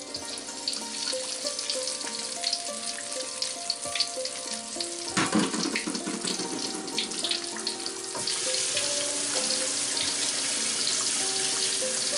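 Whole floured red tilapia deep-frying in hot oil in a wok: crackling and sputtering, with a louder burst about five seconds in as the tongs let the fish go, then a steady, dense sizzle from about eight seconds on. Soft background music plays under it.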